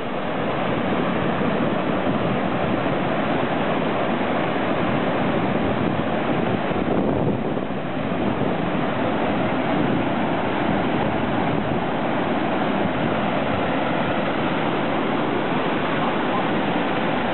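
Flash-flood torrent of muddy water and debris rushing down a wash: a steady, dense rush of water noise.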